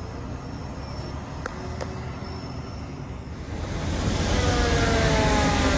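Low vehicle rumble, then about halfway in a fire apparatus siren slowly rises in pitch and grows louder over the hiss of traffic on a wet road.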